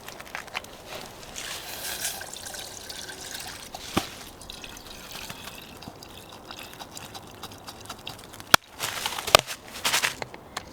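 Liquid pouring into a container, its pitch climbing as it fills. Near the end come a sharp click and a burst of rustling and clatter.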